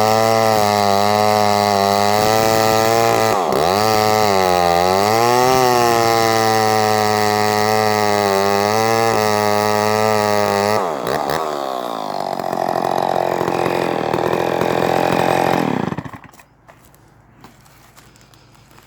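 Vintage Skil 1629 68cc two-stroke chainsaw running at high revs through a cut, its pitch dipping briefly a few seconds in as it takes load. About eleven seconds in it drops to a lower, rougher note, then cuts out about sixteen seconds in.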